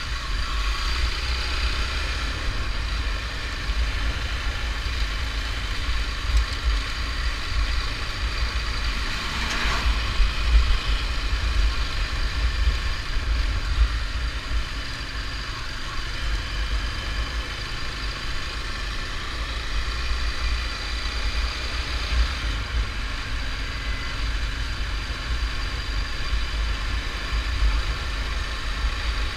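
Motorcycle engine running steadily at low speed, heard over a continuous low rumble of wind and road on the camera's microphone while riding on cobblestones. A brief louder swell comes about ten seconds in.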